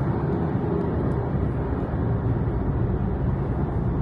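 Steady road noise of a car cruising on a highway, heard inside the cabin: an even rumble of tyres and engine.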